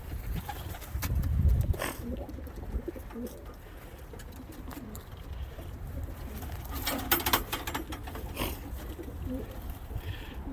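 Domestic pigeons cooing in the loft, with a few scattered sharp clicks and a short clatter of clicks about seven seconds in.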